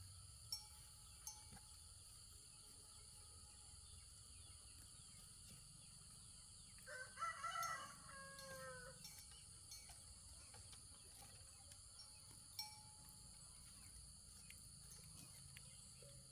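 A rooster crows once, faintly, about seven seconds in. The call lasts about two seconds and falls in pitch at the end. Otherwise near silence, with a faint steady high-pitched hiss and a few small clicks.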